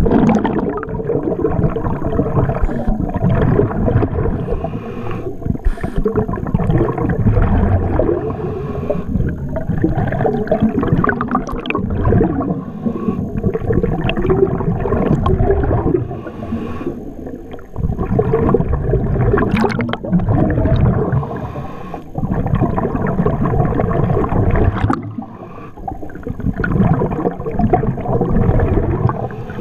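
Muffled underwater gurgling and rushing of water and bubbles heard through a submerged camera. It swells and falls, with brief lulls every few seconds.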